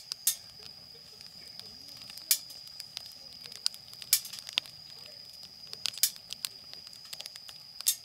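Wood fire crackling, with sharp irregular pops every second or so over a steady high thin tone.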